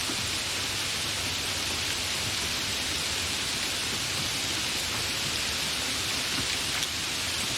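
Steady, continuous rain: an even hiss of falling rain with a faint low rumble underneath.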